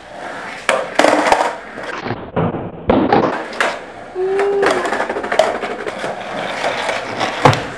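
Skateboard on a concrete floor: a series of sharp clacks from the board popping and landing, with the wheels rolling on the concrete between them.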